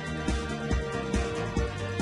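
Background music with a steady electronic beat, about two to three beats a second.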